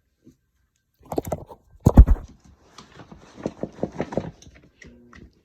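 Knocks and clicks from handling the broken Lasko box fan, which has a snapped blade jammed inside, with one heavy thump about two seconds in and lighter irregular clicks after it.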